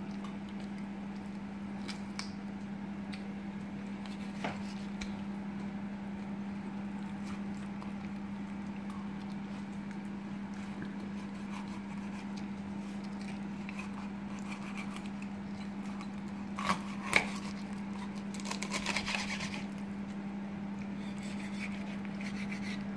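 Chef's knife cutting through a salmon head's soft bone on a wooden cutting board: a few sharp clicks and knocks, the loudest two about three-quarters of the way in, then a brief scratchy crunching. A steady low hum runs underneath.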